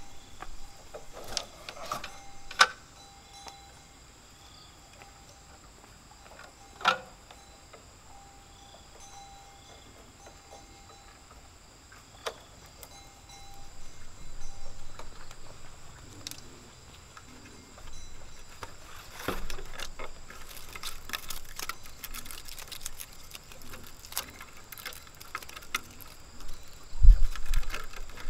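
Thin split-bamboo slats knocking and clattering against each other and the fence rails as they are woven into a bamboo fence: a few sharp clicks spread out, then a busier rattle with a dull thump in the last several seconds.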